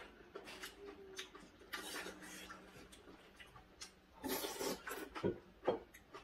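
Table eating sounds: small clicks of chopsticks against plates and bowls, with chewing and rustling. A louder run of sipping and mouth noises comes about four seconds in as broth is drunk from a small bowl.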